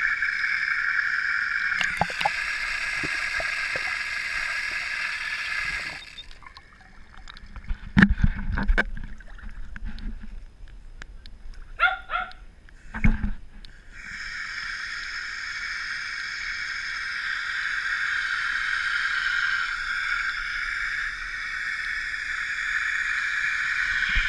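Pool water sloshing and knocking against a waterproof action camera at the water's edge, with a steady high hiss that cuts out for several seconds in the middle. During that gap there are a few sharp knocks against the housing.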